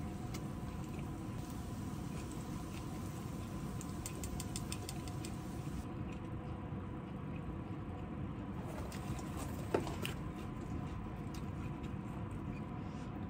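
Quiet eating at a table: soft chewing and small clicks of tongs and dishes, with a sharper click about ten seconds in, over a steady low background hum.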